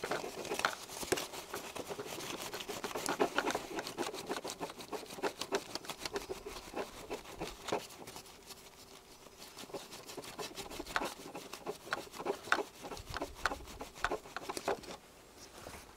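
Cloth scrubbing back and forth on a plastic display window, wet with acetone to strip black mask paint: a quick run of short rubbing strokes that eases off for a moment midway, then picks up again.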